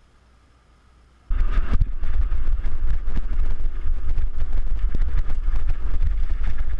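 Mountain bike ridden fast down a rough dirt trail, heard through a bike- or rider-mounted GoPro: loud wind buffeting on the microphone with constant rattling and knocking from the bike over bumps. It starts abruptly about a second in; before that there is only a faint outdoor hush.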